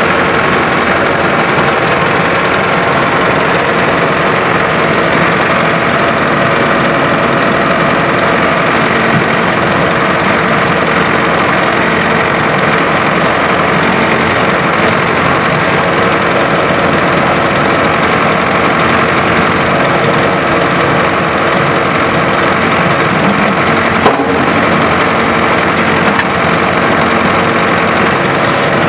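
Tractor diesel engine running steadily, powering the hydraulics of a tractor-mounted backhoe as it digs sand. One brief sharp knock late on.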